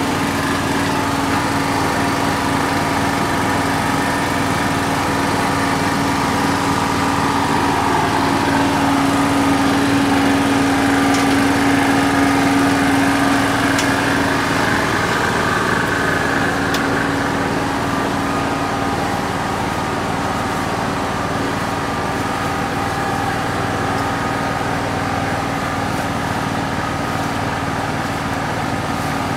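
Small engine running steadily at constant speed, with a low, even hum.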